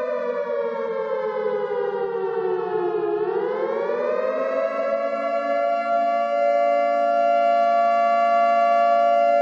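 A wailing, siren-like tone with many overtones, gliding slowly down in pitch for about three seconds, then rising and holding steady.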